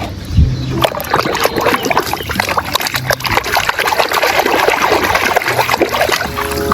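Water splashing and trickling as a muddy toy is washed by hand in water. It is a continuous run of small irregular splashes.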